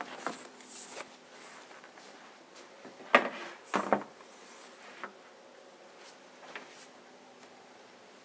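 A few sharp knocks and clicks from something being handled, the loudest two about three and four seconds in, over quiet room tone.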